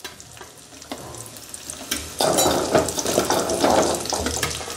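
Peeled shallots dropping into hot oil in a metal kadai with frying elephant foot yam pieces and curry leaves; the oil sizzles and crackles, getting louder about two seconds in.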